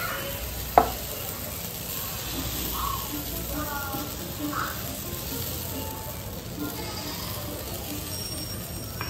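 Pancake batter sizzling softly as it is spooned into a hot frying pan and spread out, with one sharp clink of the metal spoon against the pan about a second in.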